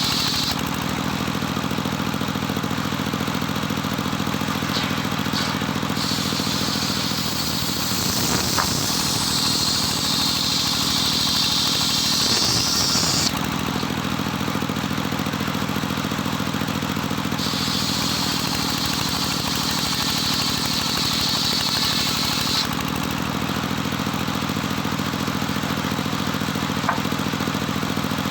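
Engine of a homemade circular-saw rig running steadily while the blade rips lengthwise through jetos timber. The cut adds a high, hissing whine twice, each lasting several seconds and ending abruptly.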